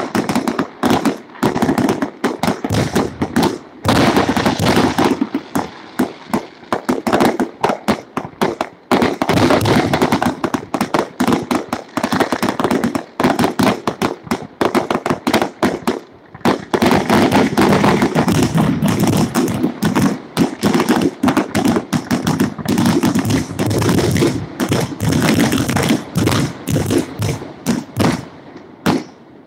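Fireworks display: aerial shells bursting in rapid, near-continuous bangs and crackling, many each second, thinning out and stopping just before the end.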